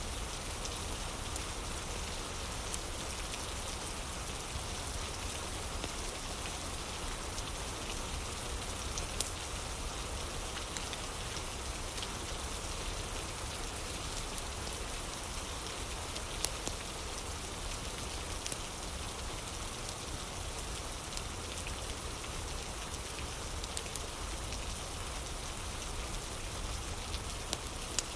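Steady rain falling, with scattered sharp crackles from a fireplace.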